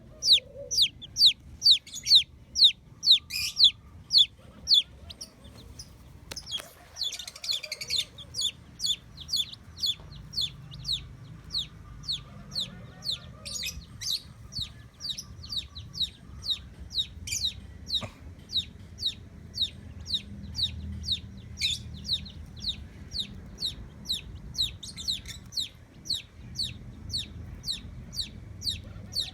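Chicks peeping: a steady run of short, high, falling peeps, about two to three a second, loudest in the first five seconds. A brief rustle comes about seven seconds in, and a few soft lower calls sound underneath.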